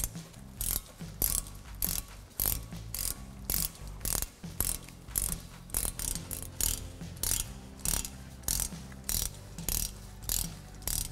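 Hand ratchet with a 7 mm Allen socket backing out a front brake caliper slide bolt, its pawl clicking through short back-strokes in a steady rhythm, a little under two strokes a second.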